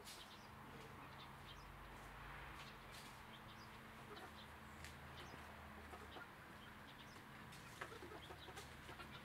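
Young chickens giving quiet, scattered soft clucks and chirps while perched together, over a faint steady low hum. A few sharper clicks come near the end as the birds shift on the perch.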